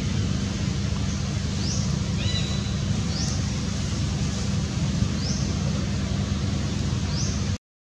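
Outdoor ambience dominated by a steady low wind rumble on the microphone, with short high rising chirps every second or two. The sound cuts out abruptly just before the end.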